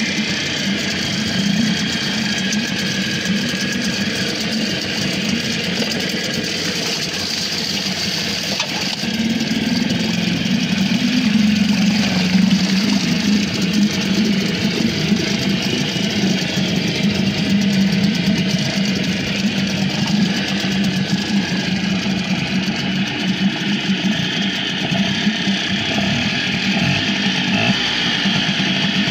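Mariner 4 hp two-stroke outboard motor running steadily with its leg in a barrel of water, the water churning. It gets a little louder about ten seconds in.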